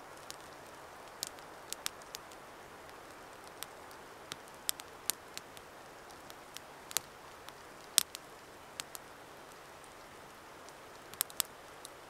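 Wood fire crackling in a small Bushbox LF wood stove: irregular sharp pops over a steady soft hiss, the loudest pop about eight seconds in.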